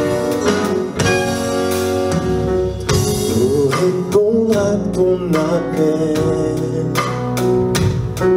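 Live band with cello, violin and keyboard playing a song's introduction. A male soloist starts singing over it about three seconds in.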